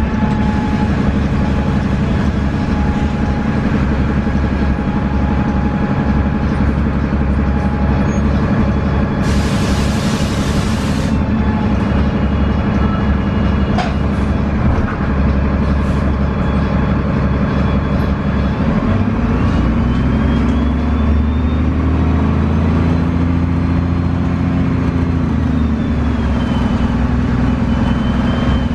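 A 2002 Gillig Advantage transit bus running, its Cummins ISC straight-six diesel and Voith transmission heard from inside the bus, with the engine note shifting about two-thirds of the way through. About nine seconds in there is a loud hiss of air lasting about two seconds.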